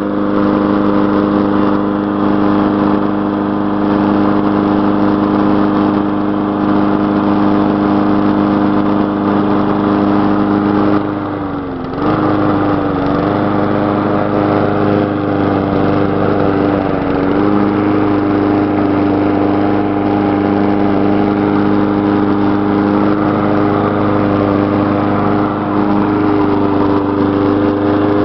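Gas lawn mower engine running steadily on the last of its old fuel. About eleven seconds in it briefly bogs down, its pitch dropping and then recovering, with a smaller stumble a few seconds later.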